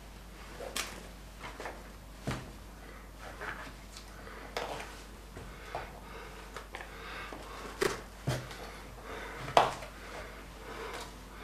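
Kitchen knife tapping and knocking on a cutting board as fresh mushrooms are trimmed, cutting off the stem ends: light, irregular knocks with small handling clicks, the sharpest just before the end.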